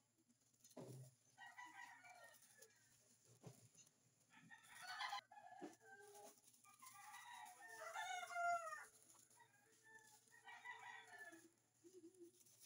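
Faint animal calls in the background, a pitched call with gliding pitch every two to three seconds, the loudest and most drawn-out about eight seconds in.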